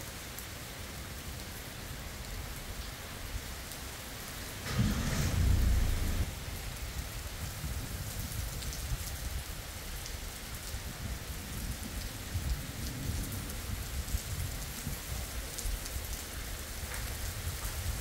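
Rain falling steadily on the road. About five seconds in, a sudden thunderclap cracks and rumbles deeply for a second or two, and the rain then carries on.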